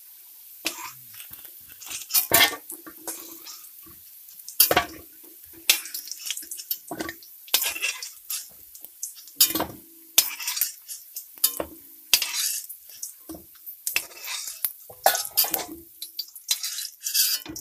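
A metal spoon scraping and clinking against a metal kadai as fried potato wedges are scooped out of the oil and into a steel bowl. The irregular scrapes and clinks come about once a second, some with a brief metallic ring.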